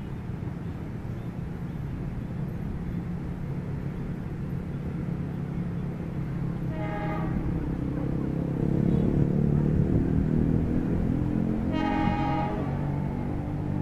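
Diesel locomotive horn sounded twice in short blasts about five seconds apart, over the low rumble of the approaching train, which grows louder midway.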